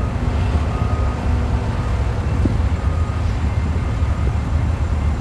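Steady low rumble of a Swingmaster Swingloader 181LTC rail loader's engine pulling a string of loaded ballast hopper cars past, the cars rolling on the rails, with a faint knock or two from the wheels.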